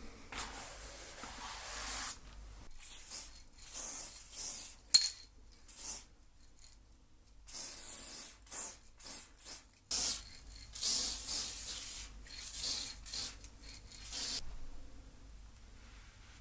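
Aerosol spray-paint can sprayed in a string of short hissing bursts, the first lasting nearly two seconds, with a sharp click about five seconds in.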